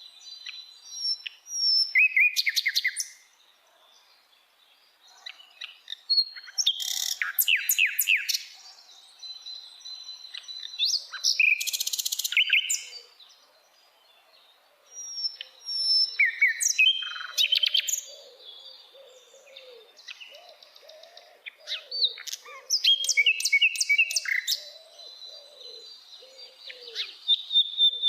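Sikatan londo songbird singing a varied song: bursts of rapid rattling trills and sharp chirps, a held high whistle, and softer low warbling notes in the second half. It pauses briefly about four seconds in and again near the middle.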